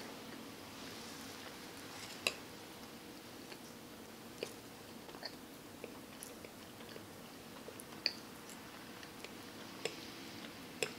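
Faint close-up chewing of a mouthful of buttered pancakes, with a few sharp little clicks of a metal fork against a plastic tray, the loudest about two seconds in.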